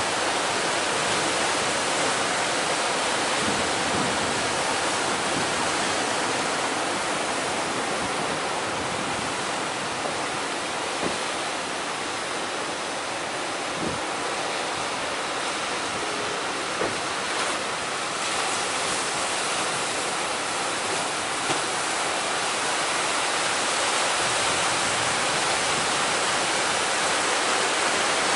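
Big ocean waves breaking in heavy surf: a steady rushing noise of water that never lets up, with a few faint knocks.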